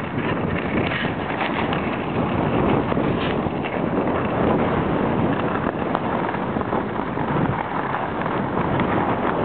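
Steady wind noise buffeting the microphone of a camera carried by a skier moving downhill, mixed with the hiss of skis sliding over groomed snow.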